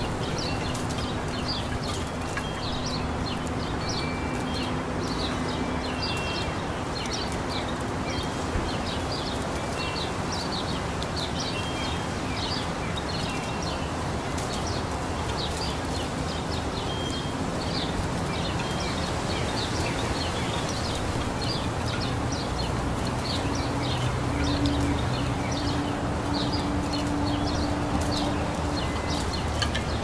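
Small birds chirping in short, repeated calls over a steady wash of breeze. A low steady hum runs underneath and grows louder near the end.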